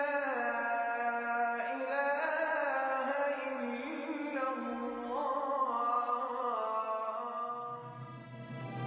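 Programme theme music with a slow, wavering melody. Near the end a low steady drone comes in as the melody fades.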